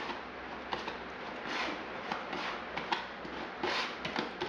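A putty knife scraping and spreading liquid waterproofing membrane over fiberglass tape at the edges of a shower niche: a series of short scraping swipes with small clicks and taps between them.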